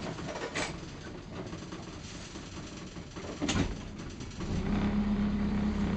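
A few knocks and clicks, then a sharp click about three and a half seconds in, after which the boat's engine starts and runs with a steady hum that rises slightly in pitch. This is an engine with a fault that makes it die off when throttled.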